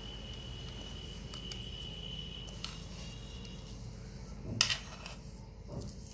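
Steel spoon scraping and knocking against an aluminium pan and plastic tea strainer while soft oily herb paste is scooped out for straining, with one sharp clink a little past halfway and a fainter knock near the end. A faint steady high-pitched tone runs through the first half.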